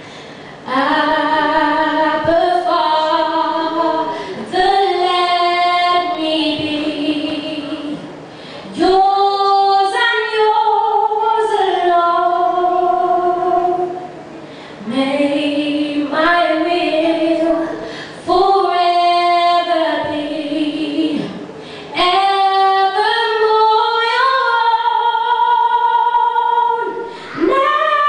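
A young woman singing solo a cappella into a microphone, with long held notes that waver in vibrato, in phrases of a few seconds broken by short pauses for breath.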